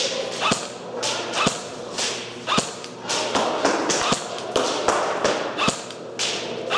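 Airsoft guns firing single shots: a string of sharp snaps, about one or two a second, each ringing briefly in the large indoor room.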